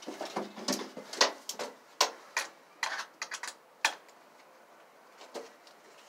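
Sharp, irregular clicks and knocks, about a dozen in the first four seconds, from a cordless drill being handled; the drill's motor is not running.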